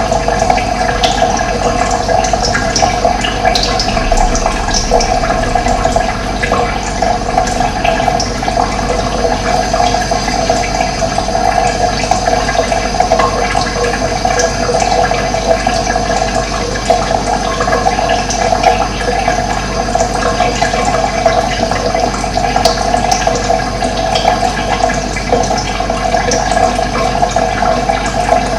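Running water flowing steadily, with a few faint bird chirps in the first few seconds.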